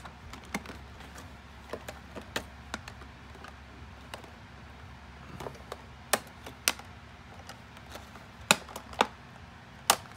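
Clear plastic packaging bag being handled and pulled open around a plastic toy figure: scattered sharp crinkles and clicks, with a few louder snaps in the second half.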